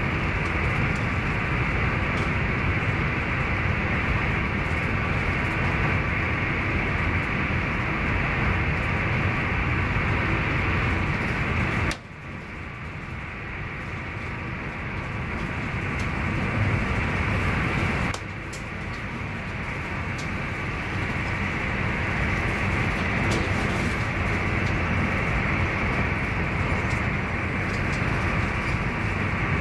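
Interior running noise of an SJ X40 (Alstom Coradia Duplex) double-deck electric train at speed: a steady rumble and rolling hiss. About twelve seconds in the noise drops suddenly and swells back over several seconds, then drops again about eighteen seconds in and builds up once more.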